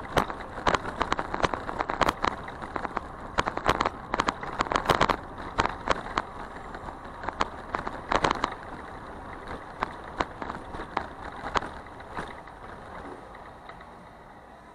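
Bicycle rattling and clicking irregularly as it rolls along a city street, over a steady rolling hiss. The clicks thin out and the sound gets quieter over the last few seconds.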